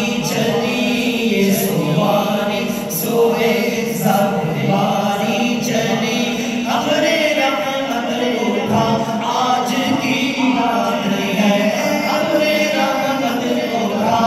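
A group of men's voices singing an Islamic devotional chant together, held notes rising and falling.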